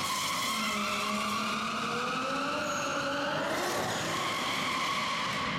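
Nissan 200SX S14 drift car sliding sideways on the throttle: its engine revving up and down under a steady hiss of spinning, sliding tyres.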